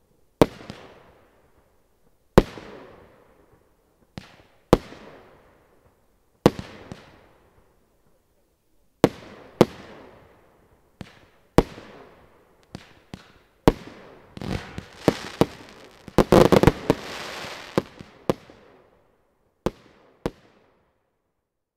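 A 76-shot fireworks cake, Original's Brutal Box, firing: single sharp bangs every second or two, each trailing off in a long echo. About fifteen seconds in comes a quick run of shots with a dense crackle, then two last bangs near the end.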